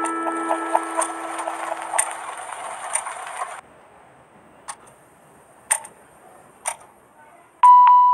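Lofi background music with a ticking clock in it; the music drops out about three and a half seconds in, leaving the clock ticking alone about once a second, and bell-like mallet music comes back in near the end.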